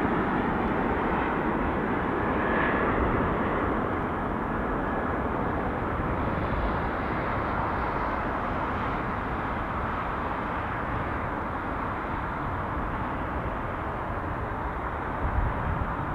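Two rear-mounted CF34 turbofans of a Bombardier CRJ regional jet on final approach, giving a steady jet rumble that slowly fades as the aircraft descends to the runway.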